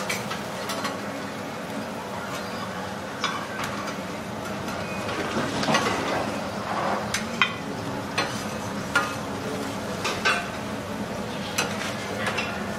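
Food sizzling steadily on a steel teppanyaki griddle, with irregular sharp clinks and scrapes of metal spatulas against the griddle and plates.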